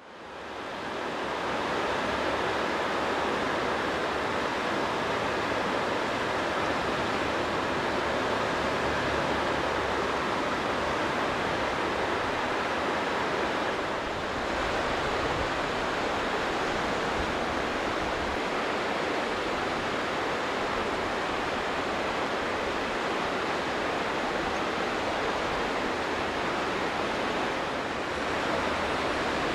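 Steady rushing of fast-flowing river water, fading in at the start, with slight dips about halfway and near the end.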